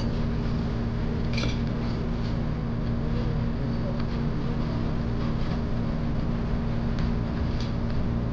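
Steady mechanical hum of restaurant room noise, with a few light clinks of a metal ladle in a steel hotpot.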